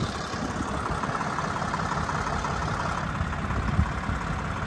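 Tractor engine running steadily at a low, even speed.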